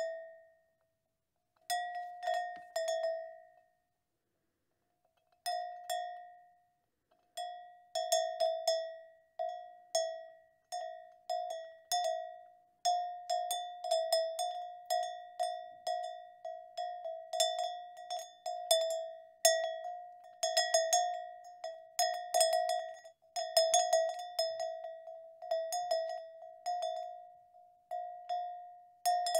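Cowbells on grazing cattle clanking irregularly with a bright metallic ring. The strikes are sparse at first, then come steadily at about two a second.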